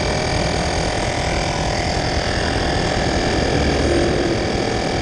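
Portable electric tyre-inflator compressor running steadily with a buzzing hum, pumping air into a bicycle tyre that keeps going flat.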